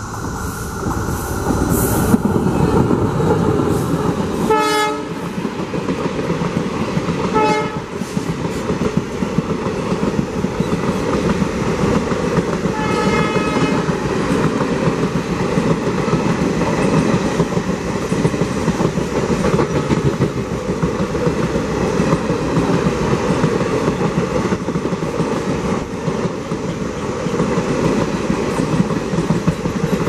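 A WDP4 diesel-electric locomotive (an EMD design) passes close by with its passenger train, followed by the continuous loud rolling noise of the coaches on the track. The locomotive's horn sounds three short blasts, at about 4½, 7½ and 13 seconds in.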